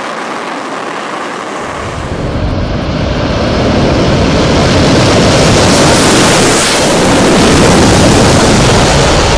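Fighter jet engine running loud, a rushing roar that builds from about two seconds in and stays loud as a Dassault Mirage moves along a motorway strip.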